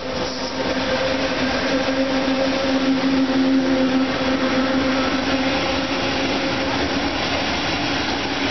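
PKP EU07 electric locomotive running through at speed with a steady hum, followed by Bombardier double-deck coaches rolling past in a continuous rush of wheel and rail noise. The hum fades about seven seconds in while the rolling noise goes on.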